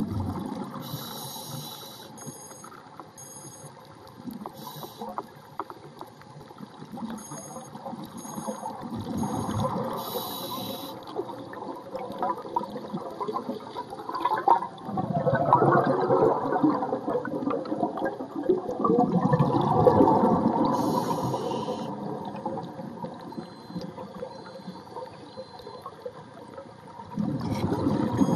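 Underwater sound picked up by a camera in its housing: water rushing and gurgling past it, swelling louder in the middle and again near the end. Now and then, short high-pitched beeps come in runs of two or three.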